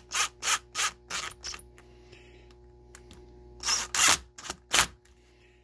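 Cordless power driver run in short trigger pulses, about three a second, snugging down screws on a reciprocating saw's nose plate. The pulses stop about a second and a half in. Two more runs follow near the end, a longer one and then a brief one.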